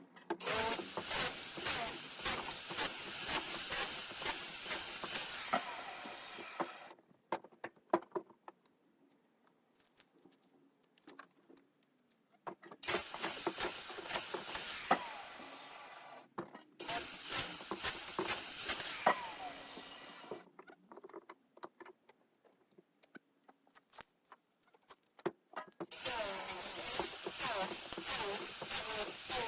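Circular saw cutting thin trees into firewood lengths in four cuts of several seconds each. Short knocks of wood being handled fall in the pauses between cuts.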